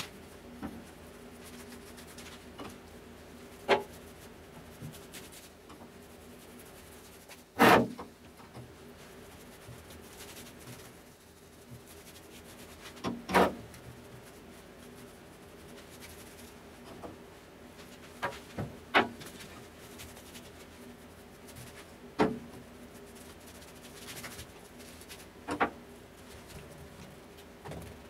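Paintbrush stroking paint onto a sheet-metal box, a soft scratchy rubbing, broken by about seven sharp knocks against the metal, the loudest about eight seconds in. A faint steady hum runs underneath.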